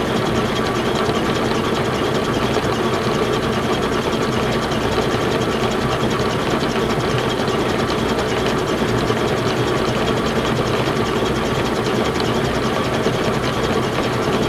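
Defiance horizontal boring mill running, its new 4-flute 1-inch high-speed-steel end mill cutting steadily into the flame-cut steel of a welded angle plate: an even machine hum with a fast, fine ticking. The cut is smooth, with no chatter, the sign of a sharp cutter and a rigid setup.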